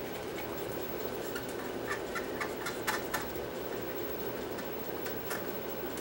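Faint scratching and light clicks of a cotton swab scrubbing the metal tape guides of a vintage reel-to-reel video recorder, heard over a steady background hum. The clicks cluster in the first half and come once more near the end.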